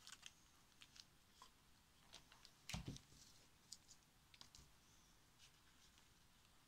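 Faint, scattered clicks and small taps of hands handling dried leaves and berry sprigs, with one louder knock nearly three seconds in, against near silence.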